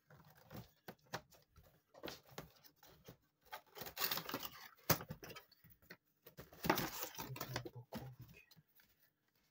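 Cardboard cat-food box being handled and shifted on a countertop: irregular knocks and clicks, with two longer stretches of rustling and scraping, one about four seconds in and one about seven seconds in.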